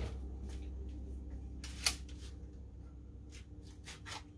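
A single unsuppressed shot from a modified .25-calibre Crosman 600 CO2 air rifle: a sharp crack at the very start, loud because the opened-up valve flows a lot of gas. A second short noisy burst follows about two seconds in, then a few faint clicks over a steady low hum.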